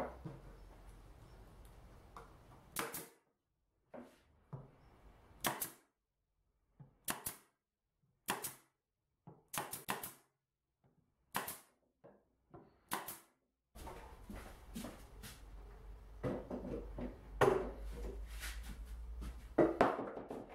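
Pneumatic brad nailer firing about a dozen single shots, roughly a second apart, driving brads into plywood. From about two-thirds in come wooden knocks and heavier thumps.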